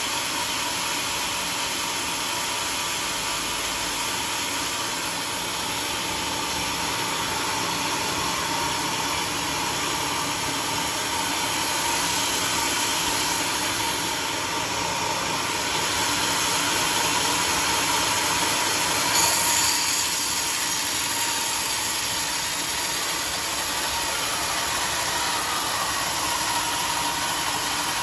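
Homemade engine-driven sawmill running steadily, a constant machine noise with a steady tone running through it. About nineteen seconds in there is a brief sharper, higher burst.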